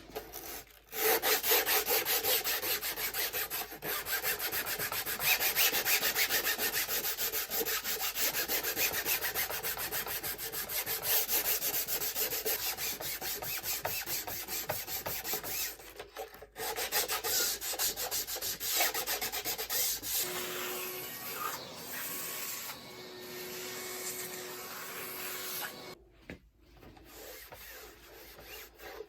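Hand sanding or scuffing: fast, scratchy back-and-forth rubbing strokes that stop briefly about halfway through. Near the end the rubbing turns lighter, and a faint steady tone sounds under it.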